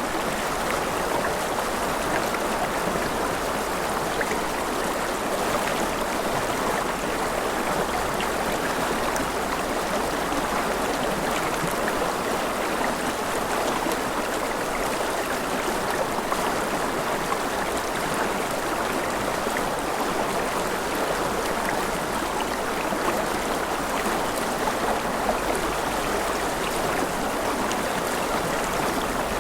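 River water flowing and splashing over stones, a steady rushing with fine trickles and gurgles and no let-up.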